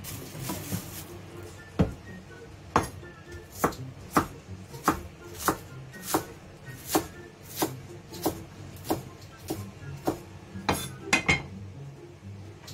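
Chinese cleaver chopping spring onions on a thick round wooden chopping board: single sharp knocks of the blade into the wood, about fifteen of them at a steady pace of roughly one every two-thirds of a second, starting about two seconds in, with two quick strokes close together near the end.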